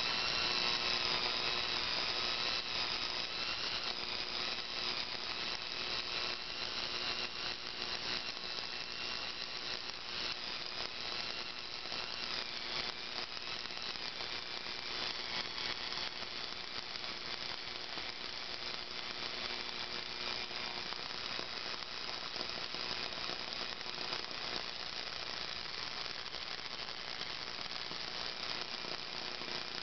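Small universal motor from a paper shredder running steadily on AC, a whir with a dense crackle from heavy arcing at its carbon brushes. The motor is being driven toward burnout.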